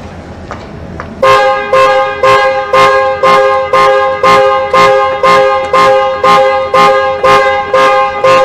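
Car alarm going off about a second in, sounding the car's horn over and over in a steady rhythm of about two loud blasts a second.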